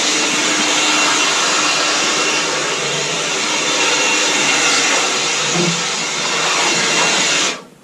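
DeWalt 20-volt cordless leaf blower running steadily with a loud rush of air, blowing sawdust off a freshly milled cedar beam, then switched off near the end.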